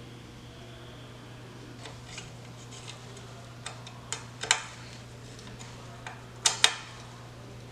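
Metal tools and bike parts being handled during a bike build: scattered sharp clicks and metallic taps, loudest in a pair of clacks about halfway through and another pair near the end, over a steady low hum.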